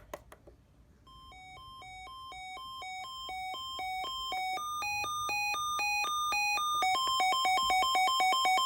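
Sangean CL-100 weather alert radio sounding its siren alarm on a siren test: a two-tone alternating beep that grows steadily louder, steps up in pitch about halfway through, and alternates faster near the end. It is preceded by a couple of button clicks.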